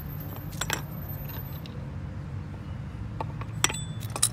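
A few sharp metallic clinks and taps as a BC Racing coilover and its top mount hardware are handled on concrete, the loudest near the end.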